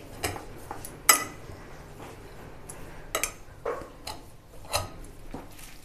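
Steel spoon and fork clinking and scraping against a glass mixing bowl while stirring a crumbly coconut, jaggery and khoya filling: irregular light clinks, the sharpest about a second in.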